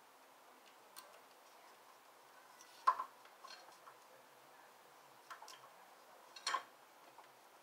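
Scattered light clicks and knocks of hand tools on metal parts while working on a motorcycle: a few single ticks, with the loudest about three seconds in and another sharp cluster near the end.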